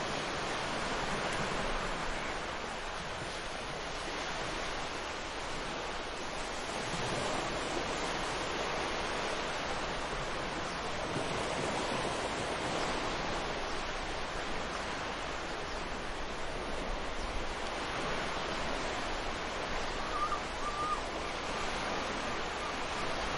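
Ocean surf washing in steady swells of noise that rise and fall every few seconds, with a short bird call near the end.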